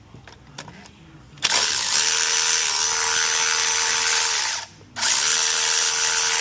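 A handheld power tool runs twice, about three seconds each time with a short pause between, backing out the alternator mounting bolts. Its motor pitch rises as each run starts and drops as it stops. Faint tool-handling clicks come before the first run.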